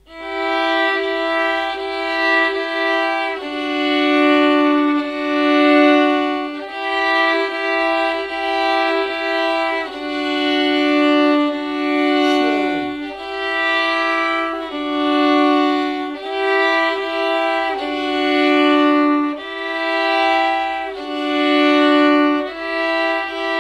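Two violins bowed together, each playing a different simple beginner's tune at the same time. Long held notes sound in pairs and change every second or two in a slow, even pulse.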